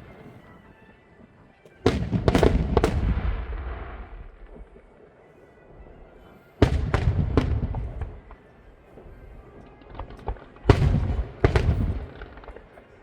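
Fireworks bursting in three volleys of sharp bangs, about two, six and a half and eleven seconds in, each trailing off in a low rumble.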